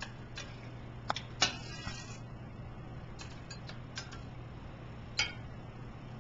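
A spatula clinking and scraping against a stainless steel frying pan and a ceramic plate as salmon bites are lifted onto the plate: a handful of sharp clinks, the loudest about a second and a half in with a short scrape after it. A low steady hum runs underneath.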